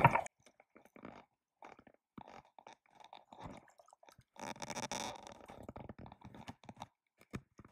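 Scattered short rustles, clicks and scrapes of waders and gear close to the camera's microphone, with a louder scraping patch about halfway through.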